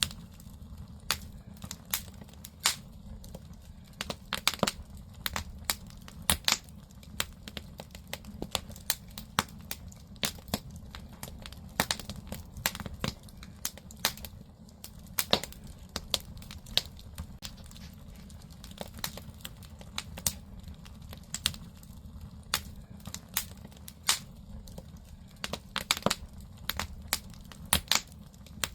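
Firewood burning in a traditional Korean agungi firebox: irregular sharp crackles and pops over a steady low rumble of the fire.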